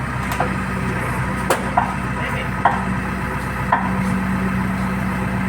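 JCB backhoe loader's diesel engine running steadily under work, with about five sharp knocks at uneven intervals from the digging on the concrete pillar.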